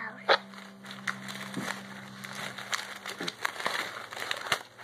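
Artificial flowers with plastic stems rustling and crinkling as they are handled close to the microphone, with scattered small clicks and taps.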